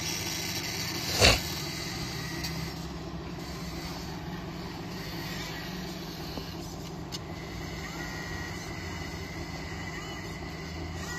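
RC hydraulic construction models running: a steady hum of their hydraulic pumps and motors, with one short loud hiss about a second in.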